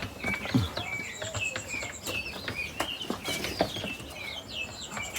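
A pen of young chickens peeping and chirping: many short, high, falling calls overlapping continuously, with scattered sharp clicks among them.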